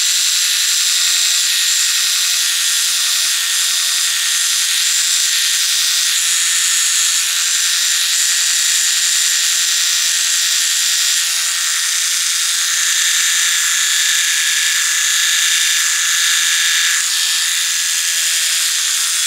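Small electric nose, ear and eyebrow grooming trimmer running without a break with a high-pitched whir, used to clean up eyebrow hairs; it sounds intense.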